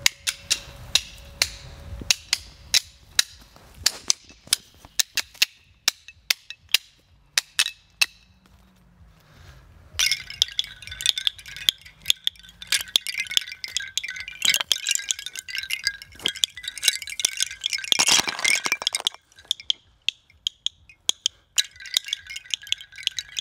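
Hanging metal chimes being struck: a string of separate sharp clinks, then from about ten seconds in a dense, continuous jangling with a held ringing tone. The ringing breaks off briefly about two-thirds of the way through and starts again near the end.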